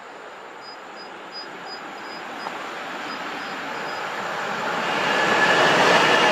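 A train approaching on the line, its rolling noise growing steadily louder, with a high whine coming in near the end as it draws close.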